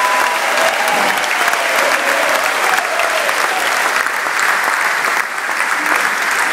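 A large audience applauding steadily, a dense unbroken clapping.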